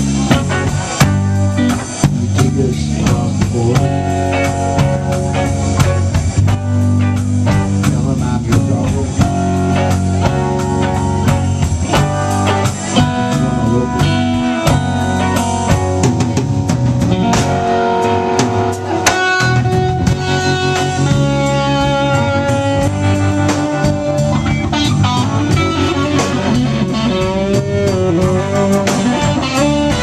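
Live rock band playing an instrumental passage: two electric guitars over electric bass and drum kit, with a lead guitar line of sustained, wavering notes through the second half.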